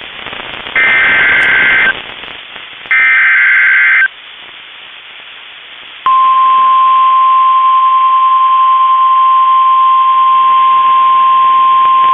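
NOAA Weather Radio emergency alert signal: two roughly one-second bursts of raspy digital SAME header data, then after about two seconds of radio hiss the steady 1050 Hz weather radio warning alarm tone starts and holds, announcing a new warning.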